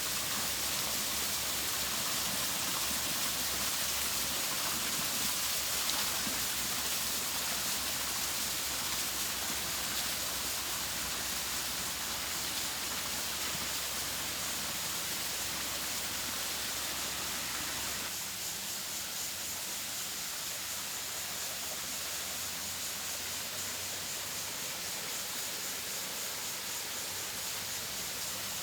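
Running water splashing steadily. About two-thirds of the way through, the deeper rush drops away and the sound becomes thinner and hissier.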